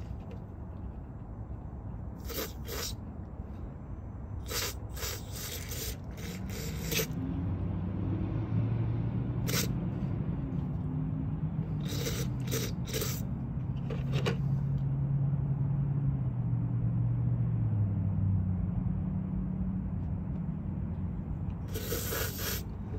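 Aerosol brake cleaner sprayed in short hissing bursts through a removed NOx sensor to flush carbon deposits out of its small holes. A low hum rises from about seven seconds in and fades around eighteen seconds.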